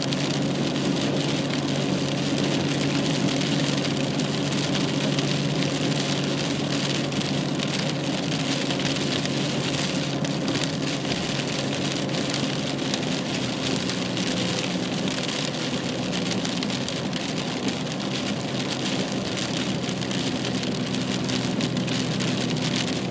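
Steady road and engine noise inside a moving car: an even hiss of tyres on the road over a low, constant engine hum.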